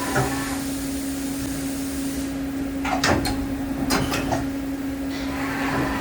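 Daewoo DMV4020 CNC vertical machining center running with a steady hum; a hiss stops about two seconds in, followed by several sharp mechanical clunks.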